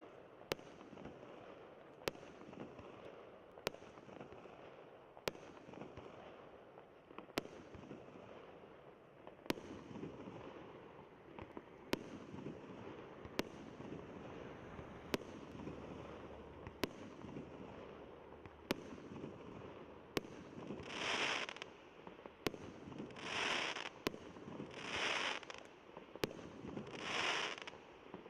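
Consumer firework cake going off: a row of sharp bangs about every second and a half, then, from about 20 seconds in, longer crackling bursts about every two seconds.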